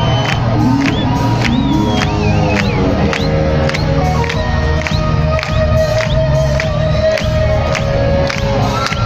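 Rock band playing live on electric guitar and drums, with a steady beat of a little over two hits a second and a long held note in the middle. The audience cheers and claps along.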